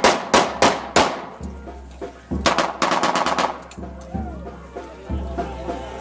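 Loud sharp bangs: four about a third of a second apart, then after a pause a rapid string of about ten within a second, with band music playing underneath.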